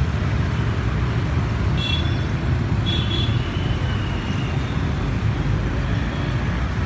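Steady urban road traffic: a continuous low rumble of engines and tyres, with two brief high-pitched tones about two and three seconds in.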